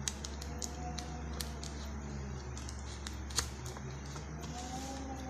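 Utility knife cutting through a brown paper envelope, with light paper crackling and scattered small clicks; one sharper click about three and a half seconds in. A steady low hum runs underneath.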